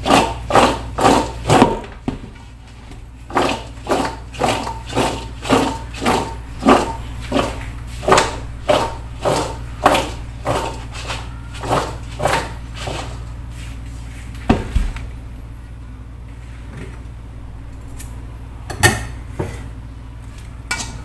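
Salted chayote slices being tossed in a metal mixing bowl: a steady run of knocks, about two a second, each with a brief metallic ring. After about two-thirds of the way through the tossing stops, leaving a few scattered knocks.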